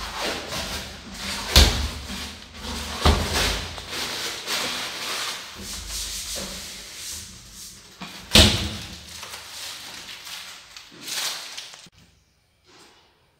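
Aluminium-framed kitchen cabinet doors being worked by hand: scraping and rubbing in their frames, with sharp knocks about a second and a half in, three seconds in and eight seconds in. The sound drops away suddenly near the end.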